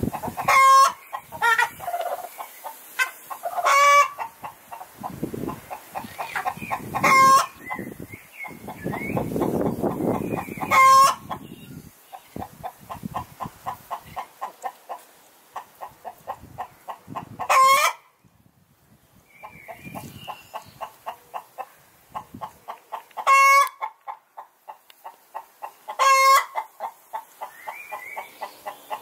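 A flock of hens clucking in quick runs, with loud, sharp squawking calls every few seconds. The sound drops away briefly about two-thirds of the way through.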